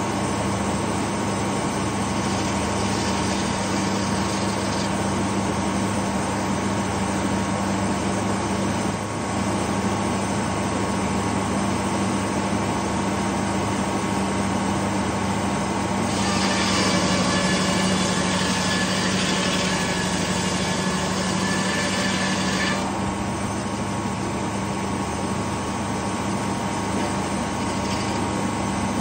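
Circular sawmill driven by a two-stroke Detroit Diesel engine running steadily at speed, its large circular blade sawing pine logs. A brighter, slightly louder stretch lasts about seven seconds in the latter half.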